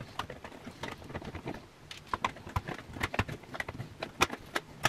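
Irregular light metallic clicks and taps of needle-nose pliers working at a nut in a control hole of an amplifier's metal front panel.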